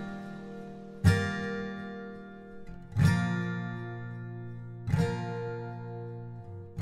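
Acoustic guitar music: slow chords strummed about every two seconds, each left to ring out and fade.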